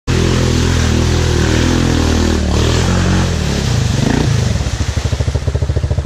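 Yamaha Grizzly 700 ATV's single-cylinder engine running at a steady speed as it wades through a muddy creek, then easing off about three and a half seconds in and settling into an even idle pulse, about ten beats a second.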